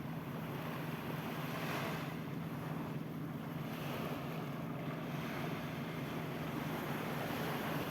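Beach ambience: surf washing ashore with wind buffeting the microphone, an even hiss that swells and eases slowly.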